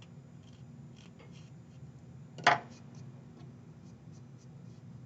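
Light scratching strokes of a tool scraping dried Bisque Fix paste off a bisque-fired ceramic piece, with one brief, louder sharp sound about halfway through.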